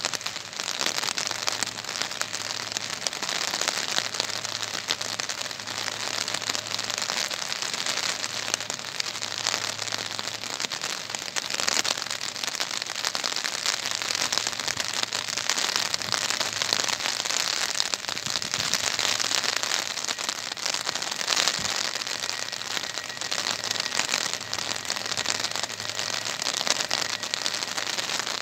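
Heavy rain falling, heard as a steady dense crackle of many small drop impacts close by.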